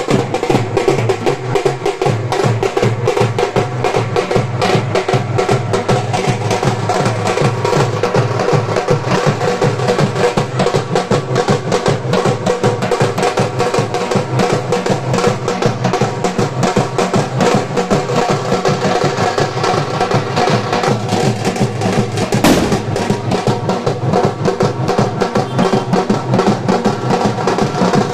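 Live street drumming on large hand-carried drums: a fast, dense, unbroken beat. A single sharp bang cuts through about two-thirds of the way in.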